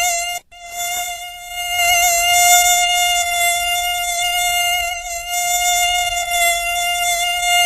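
Mosquito whine: a steady, high-pitched buzz that wavers slightly in pitch and cuts out for an instant about half a second in.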